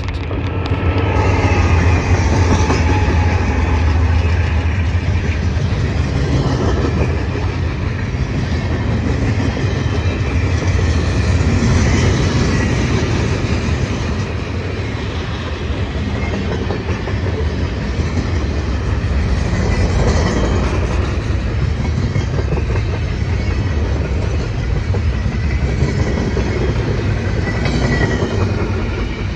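Freight train passing close by. A pair of GE C40-8 diesel locomotives rumbles past in the first few seconds, then a long string of boxcars and refrigerator cars rolls by with a steady clatter of steel wheels on the rails. Short high-pitched wheel squeals come now and then.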